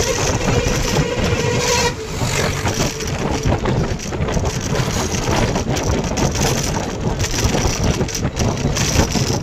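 Loud, continuous road and wind noise of a moving vehicle heard from on board, a rough rumble with many small knocks and jolts.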